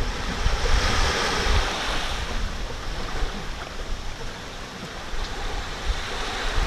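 Surf washing on a shore, with wind rumbling on the microphone.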